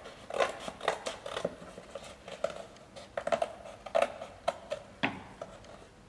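Scissors snipping through the cardboard of a painted drink carton, a series of short crisp snips about every half second as the opening is cut out, stopping about five seconds in.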